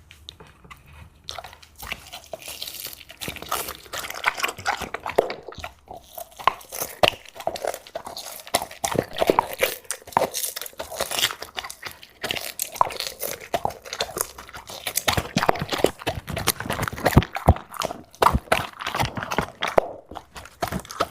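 Close-up chewing and biting of steak: wet chewing broken by many irregular sharp crunches, quieter for the first second or so.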